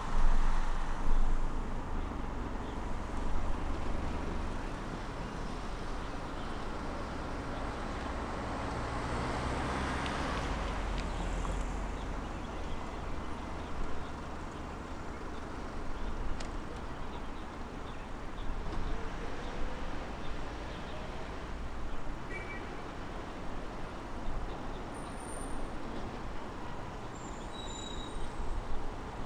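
Steady road noise from a moving car in traffic: tyre and engine rumble, swelling briefly about a third of the way through as a vehicle passes. A few faint short high chirps come near the end.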